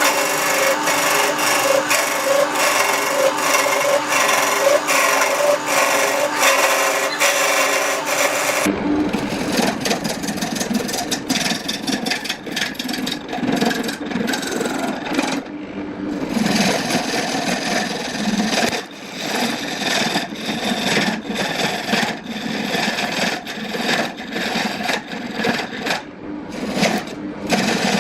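Wood lathe running with a steady hum and regular ticking, then, after an abrupt change about nine seconds in, a turning tool scraping and cutting the spinning wood in uneven strokes with short pauses.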